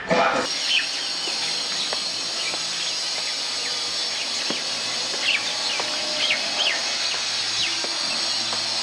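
Outdoor ambience: a steady high hiss with scattered short, falling bird chirps, most of them in the second half. Music cuts off abruptly about half a second in.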